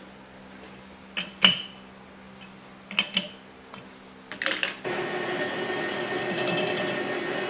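Sharp metal clinks of a chuck key tightening a steel tube in a six-jaw lathe chuck. About five seconds in, the lathe starts and runs steadily, spinning the chuck.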